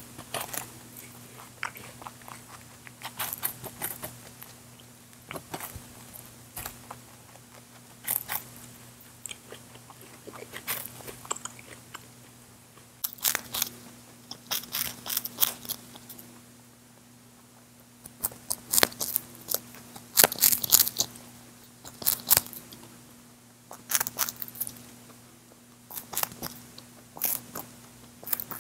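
Lop-eared rabbit chewing and gnawing, close up: clusters of quick, crisp crunching clicks broken by short pauses.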